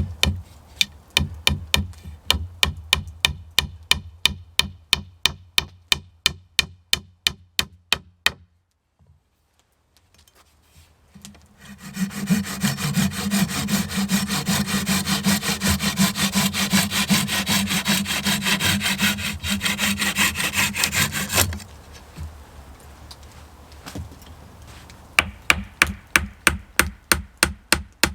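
Hand saw cutting wood in quick, even strokes, about three or four a second. It pauses briefly, then rasps steadily for a while, and the regular strokes come back near the end.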